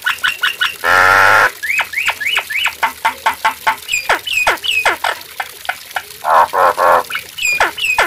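Common myna (jalak nias) singing: a rapid run of short whistled notes sliding down in pitch, a harsh rasping burst about a second in, then quick upswept whistles and more rasping notes near the end.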